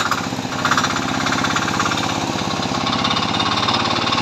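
Abaca decorticating machine running, a loud, steady mechanical drone with a fast even pulse, turning harsher for a second or so about half a second in.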